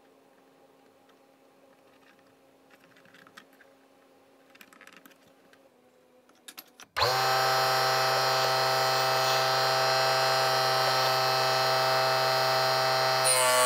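A few faint clicks and knocks from setting the saw's fence, then halfway through a 24 V 775 DC motor switches on abruptly. It drives a 60 mm saw blade through a timing belt, running free with a steady whine. Near the end the tone changes as the workpiece meets the blade.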